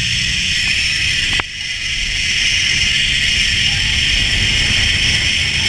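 Zip line trolley running fast along the steel cable: a steady, high whirring hiss, with wind rumbling on the microphone beneath it. The sound drops out briefly about a second and a half in.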